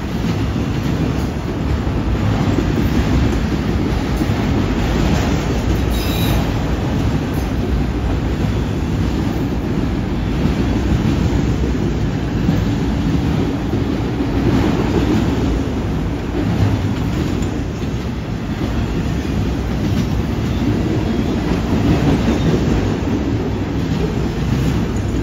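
A freight train of autorack cars rolling past: a steady noise of steel wheels running on the rails.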